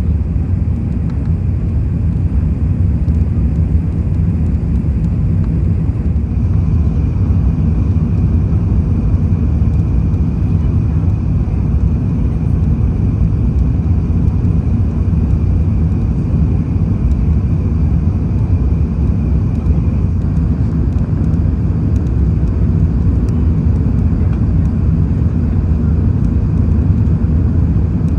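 Steady cabin roar of an Airbus A380 in its climb after takeoff, heard from a window seat over the wing: engine and airflow noise, mostly low. A faint, steady high whine joins it about six seconds in.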